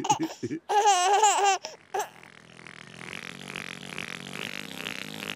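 A baby giggling in short bouts of high, wavering laughter for about a second and a half, then a hazy sound effect that slowly grows louder over the last three seconds.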